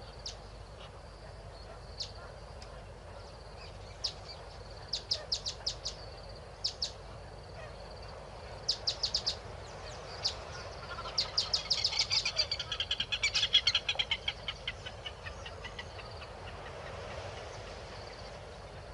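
Wild bird calls: short, sharp, high notes, some single and some in quick runs of about five, building to a dense, rapid chatter about eleven to fourteen seconds in, over steady background noise.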